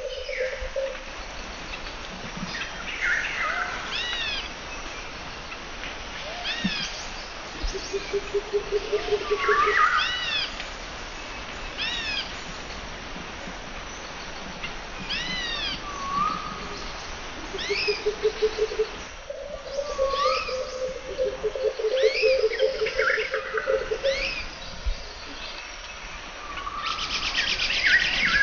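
Birds calling in a mangrove forest: short chirps and falling whistles repeated every second or two. Now and then a low, fast pulsing trill runs for a few seconds.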